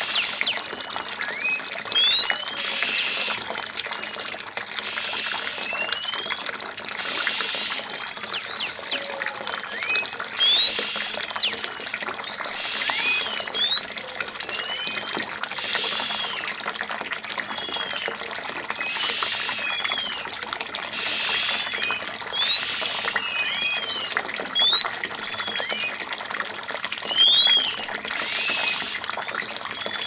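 Oriental magpie-robin bathing in a shallow water tray, splashing in short bursts every few seconds. Throughout, birds give short high whistles, many of them quick upward sweeps.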